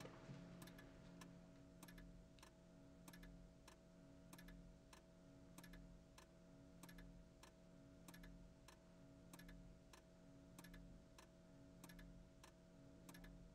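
Faint, steady ticking of a clock over a low hum.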